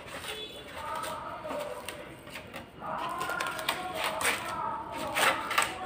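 Scattered clicks and light knocks of tools handling a gas stove's metal parts, with a few sharper knocks near the end.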